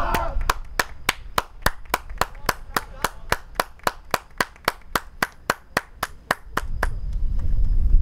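Hands clapping in a steady, even rhythm, about three sharp claps a second, stopping about seven seconds in.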